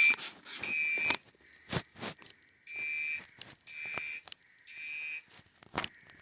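Fire alarm horn tone sounding in the temporal-three evacuation pattern: three half-second beeps about a second apart, a pause, then three more, the alarm going off after a pull station was pulled. Scattered light clicks and taps of handling sound between the beeps.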